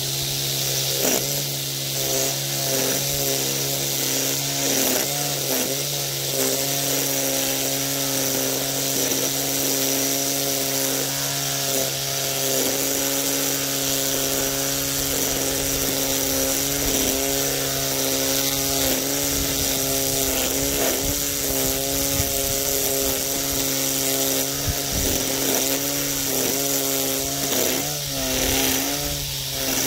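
EGO 56V PowerLoad cordless string trimmer running at a steady high speed, its motor whine and whirring line dipping in pitch now and then as the line bites into grass along the edge.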